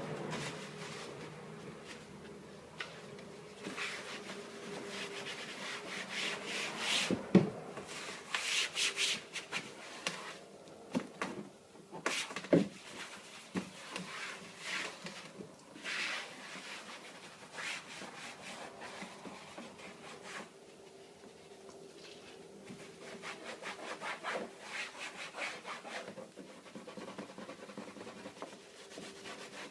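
Irregular rubbing and scrubbing strokes on a hard surface, with a couple of sharp knocks.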